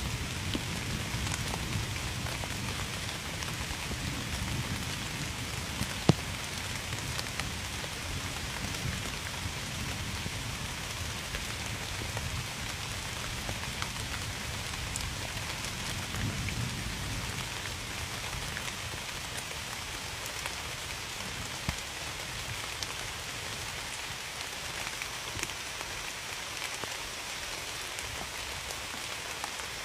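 Steady rain falling, with scattered drops ticking on a surface and a sharper single drip about six seconds in.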